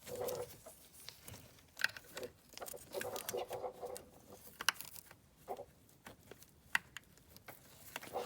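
Hands working plastic electrical connectors and wiring harness: scattered small clicks, taps and scratchy rustling as a connector is pushed into place.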